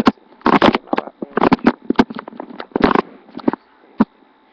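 Handling noise from a webcam being moved: irregular rustling and scraping bumps through the first three and a half seconds, then a single sharp knock about four seconds in.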